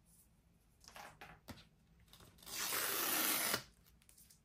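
Tear-off pull tab being ripped from the seal of a cardboard product box, one steady rip lasting about a second, after a few small rustles and clicks of handling the box.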